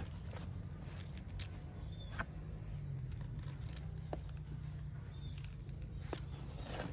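Scattered light clicks and taps, the handling of packaging, over a steady low hum.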